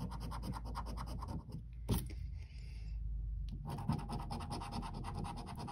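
A coin scratching the scratch-off coating from a National Lottery Luxury Lines scratchcard in quick, rapid strokes, with a sharp click about two seconds in and a brief lull just after it.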